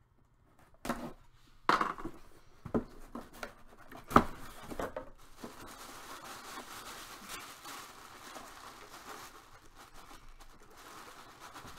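A sealed cardboard box being opened, with several sharp snaps and knocks in the first few seconds, the loudest just past the middle of them. Then a steady rustle of white tissue paper being pulled out of the box.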